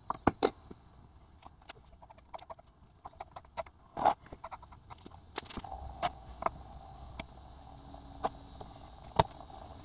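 Irregular clicks and knocks of pliers on metal spring hose clamps as the hoses at the radiator are worked loose, a few of them sharper and louder, about half a second in, at four seconds and near the end.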